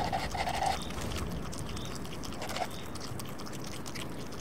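Alpine marmot eating a carrot: scattered crunchy clicks of chewing, with two short rough noises, one at the start and one about two and a half seconds in, over a steady low background.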